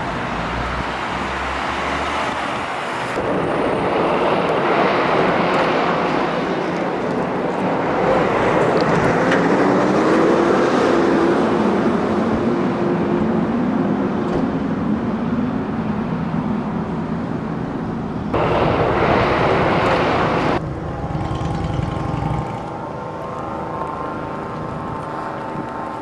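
Outdoor road traffic: vehicles running past over a steady rushing noise, with one engine rising in pitch and holding about eight seconds in. The sound shifts abruptly several times along with the shot changes.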